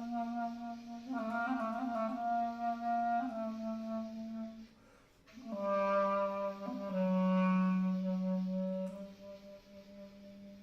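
Slow solo instrumental music: a single melody line of long held low notes, with a quick ornament about a second in and a short pause near five seconds, then lower held notes that fade toward the end.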